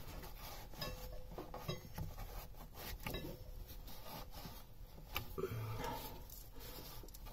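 A cloth rag rubbing and wiping acid residue off the top of a flooded lead-acid battery, with faint scattered clicks and knocks.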